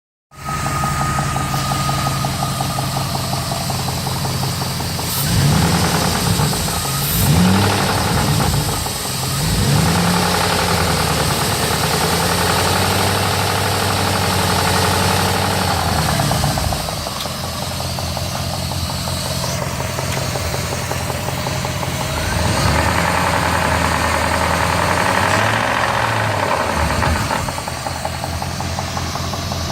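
1999 Jeep Grand Cherokee WJ's 4.7-litre V8 idling with a tapping tick, revved in a few short blips in the first third and again a little past the middle. The tick gets worse as the throttle rises. It has stayed after an oil change and with good steady oil pressure, and the owner blames having let the oil run too low.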